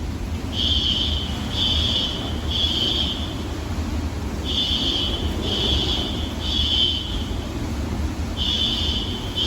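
Building fire alarm sounding in the temporal-three pattern: three high beeps, a pause, repeating three times, over a steady low rumble of hurricane wind.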